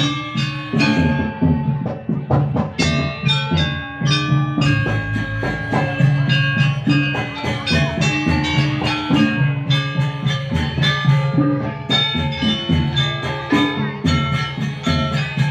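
Gamelan-style dance music: quick runs of struck, ringing metal notes over steady drum strokes.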